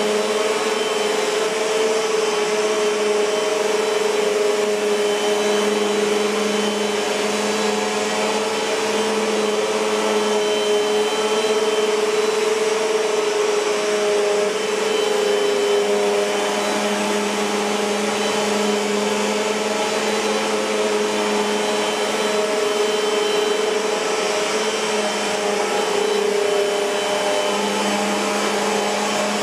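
Bissell PowerForce Compact bagless upright vacuum cleaner running steadily, its motor whine wavering slightly in pitch.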